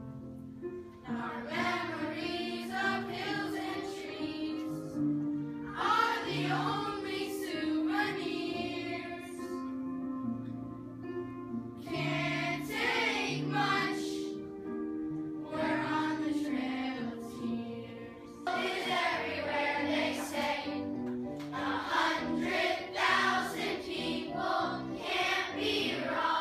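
Children's choir singing a song in phrases a few seconds long over a steady instrumental accompaniment.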